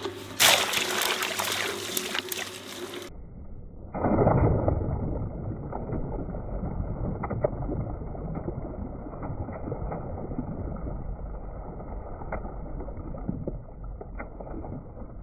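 Twin-shaft shredder running as water balloons drop onto its cutters and burst, with water splashing. After about three seconds the sound turns muffled and steady, broken by occasional sharp pops.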